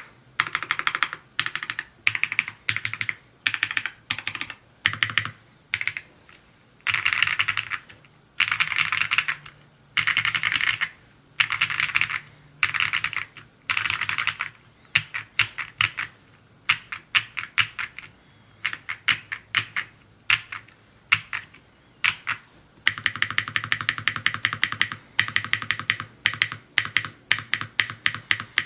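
Typing on an Evo80 mechanical keyboard: rapid keystroke clicks in short runs with brief pauses, then a longer, faster unbroken run near the end.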